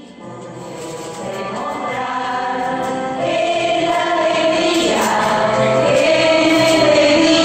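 A small group of older performers singing together in unison, with handmade paper instruments, fading in and growing louder over the first few seconds.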